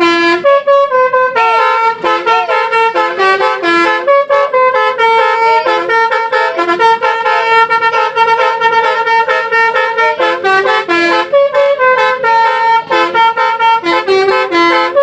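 Indonesian bus 'telolet' multi-tone air horn playing a fast melody of short notes without a break.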